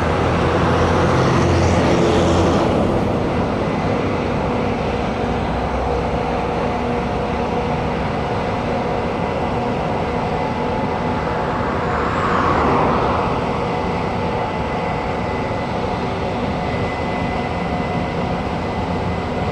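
Corn harvesting machinery running steadily in the field: a continuous engine drone with steady tones. It swells briefly near the start and again about twelve seconds in.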